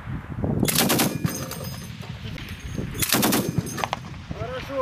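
Soviet DShK heavy machine gun, firing 12.7×108 mm rounds, loosing two short bursts about two seconds apart.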